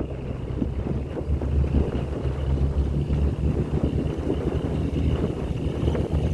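Wind buffeting the microphone: a loud, unsteady low rumble that rises and falls without a break.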